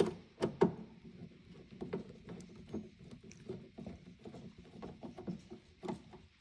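Screwdriver turning a screw into the plastic lamp cover of an Epson 5040UB projector: a few sharp clicks in the first second, then a run of small, irregular ticks and scrapes as the screw is tightened.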